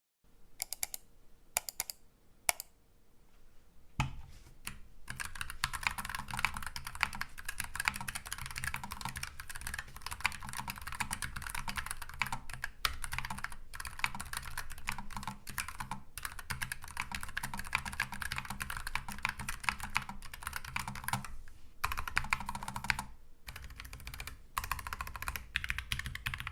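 Keychron K7 Pro low-profile mechanical keyboard with tactile brown switches, stock and unmodded, being typed on. A few single keystrokes come first, then steady fast typing from about four seconds in, with a couple of brief pauses near the end.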